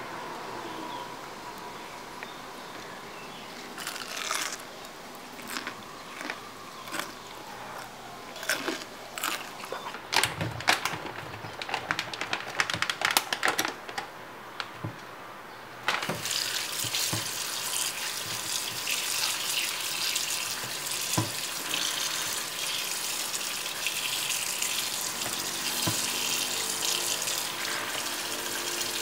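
Scattered light clicks and knocks, then about halfway through a kitchen tap starts running into a stainless steel sink and keeps running steadily while oyster mushrooms are rinsed by hand in a plastic colander.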